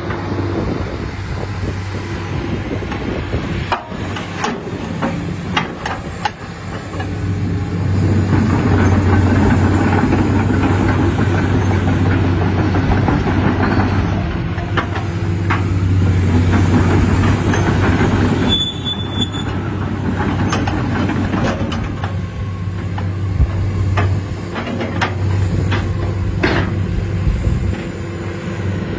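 Komatsu PC400-7 excavator's six-cylinder diesel engine running steadily, its note swelling louder twice for several seconds. Scattered sharp metallic knocks run over it.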